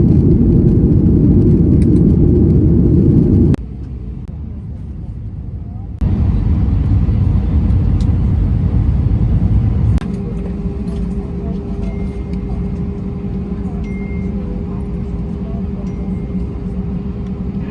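Low rumbling vehicle travel noise in several short clips that cut abruptly from one to the next. The last clip holds a steady humming drone with a few short high beeps.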